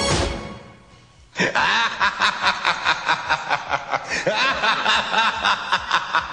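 A last low note dies away, then about one and a half seconds in a man's sinister horror-film laugh begins, a steady 'ha-ha-ha' pulsing about four times a second.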